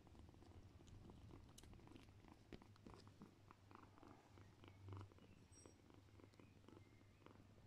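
Quiet, steady cat purring from the nursing mother cat and her kittens, swelling briefly about five seconds in, with many small clicks over it.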